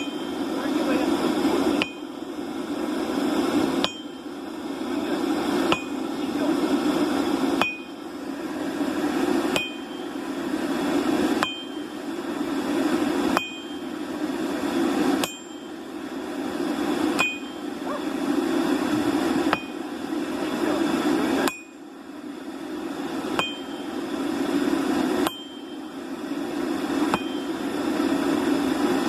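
Hammer blows on hot metal at the anvil, about one every two seconds, each with a short metallic ring, over a steady rushing noise.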